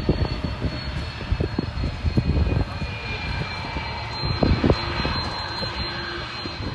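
Airbus A330 twin-engine jet airliner's engines running at takeoff power: a loud, steady roar with a high whine above it.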